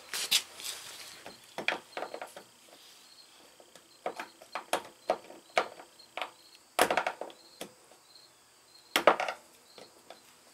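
Irregular clicks and knocks of tools and parts being handled while working on a minivan's fuel tank and pump lock ring, with the two loudest knocks about seven and nine seconds in.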